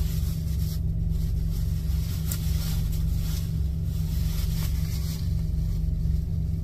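Semi-truck's diesel engine idling, a steady low hum heard inside the sleeper cab. A few faint clicks and rustles of something being handled sound over it.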